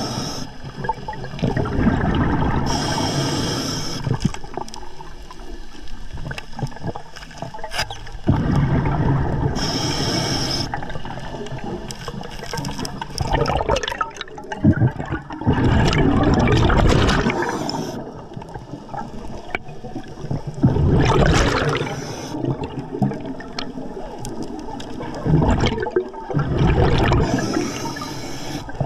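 Scuba diver breathing through an Atomic regulator underwater: a short hiss on each inhale, then a gurgling rush of exhaled bubbles, repeating every several seconds.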